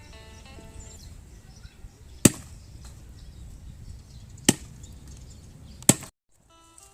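Three loud, sharp chopping blows, roughly two seconds apart, over a low steady background; faint music fades out in the first second.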